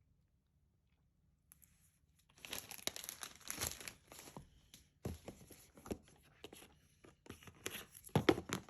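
Packaging being torn open and crinkled while unboxing a new iPad Pro: dense crackling and tearing that starts about two and a half seconds in and carries on, with a brief pause in the middle.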